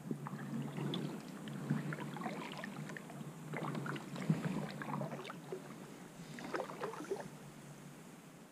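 Kayak paddle strokes in calm river water: the blades dip and splash, with dripping between strokes, easing off near the end.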